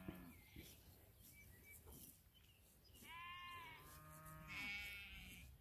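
Sheep bleating: a faint call at the very start, then two drawn-out calls in quick succession from about three seconds in, the second lower and longer.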